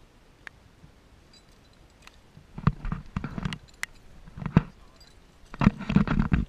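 Water splashing and sloshing as a person wades through a shallow pond. It comes in irregular bursts that start about two and a half seconds in and are loudest near the end.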